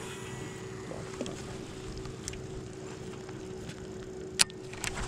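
Bass boat's electric trolling motor humming steadily, with a few sharp clicks or taps near the end.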